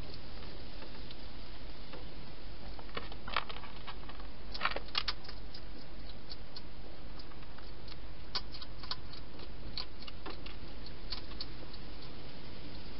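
A wild hedgehog feeding in a plastic feeding box: irregular small clicks and taps, in clusters, over a steady hiss.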